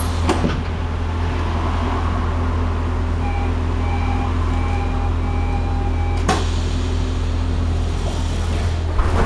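Light-rail tram standing at a stop, its onboard equipment humming steadily and low. In the middle comes a run of about five short electronic beeps, then a single sharp knock.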